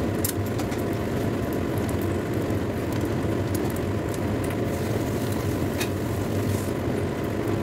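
Atchara pickling liquid (vinegar with shredded green papaya and carrot) simmering in a wok over a gas burner: a steady rushing noise with scattered small pops and crackles.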